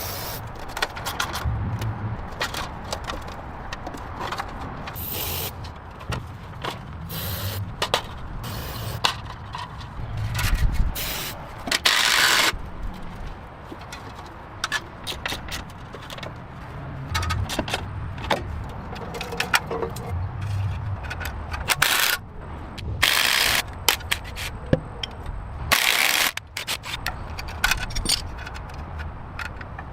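Hand work on metal parts: many clinks, knocks and scrapes, with a low rumble under them and several short hissing bursts about five, twelve, twenty-three and twenty-six seconds in.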